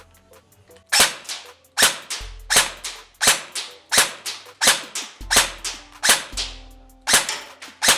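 Krytac Kriss Vector airsoft electric gun firing single shots in quick succession, about two a second, each a sharp crack as the gearbox cycles, on an 11.1 V LiPo battery.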